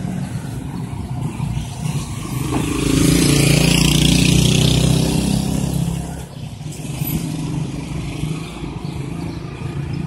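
A motor vehicle drives past on the street, its engine and tyres swelling up about two and a half seconds in and fading out around six seconds, over a steady background of street traffic.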